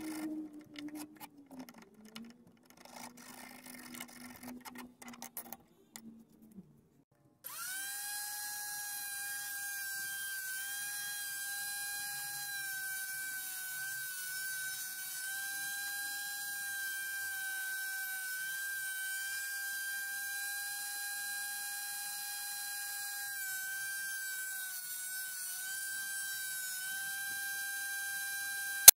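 Benchtop jointer-planer's electric motor whining steadily, starting suddenly several seconds in, its pitch dipping briefly a few times as a board is fed across the cutter. Before it, faint clicks and scraping of a hand chisel paring wood.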